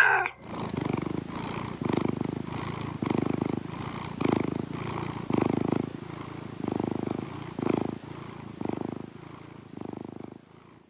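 A domestic cat purring, swelling with each breath about once a second and growing fainter toward the end.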